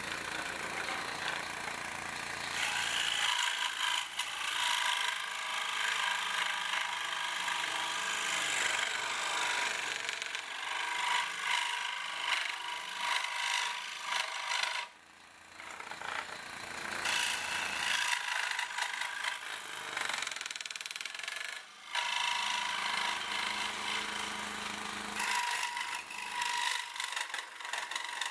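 Benchtop scroll saw cutting a tree outline out of a wooden board: the blade rasps steadily through the wood over the motor's hum. The sound drops briefly twice, about halfway through and again a few seconds later.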